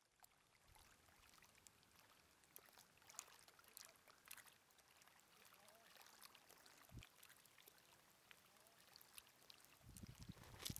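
Near silence: faint trickling of shallow lake water over stones, with scattered small ticks and a soft low thump about seven seconds in.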